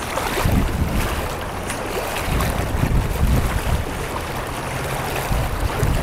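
Fast river current rushing and splashing around a person wading through it, with wind buffeting the microphone as a steady hiss over an uneven low rumble.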